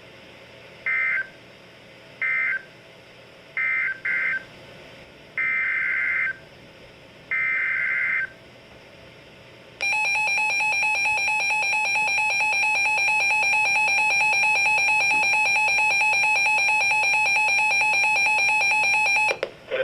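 Emergency Alert System SAME header: six short, loud, buzzing data bursts of warbling two-pitch tone, with gaps between them. About ten seconds in, the steady two-tone EAS attention signal starts and sounds continuously for roughly ten seconds before cutting off.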